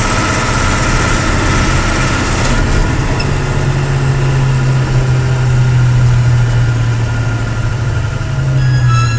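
10-ton diesel lorry engine running steadily with a deep, even drone that grows stronger about three seconds in.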